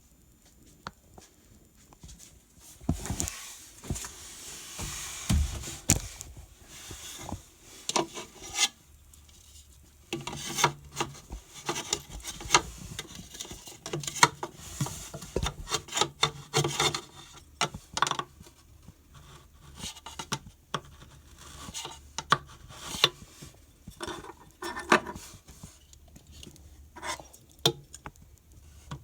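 Irregular rubbing, scraping and rasping with scattered knocks and clicks, as of things being handled and worked by hand.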